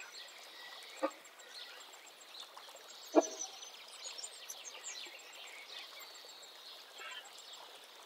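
Birds chirping and twittering throughout, with two short knocks, one about a second in and a louder one about three seconds in.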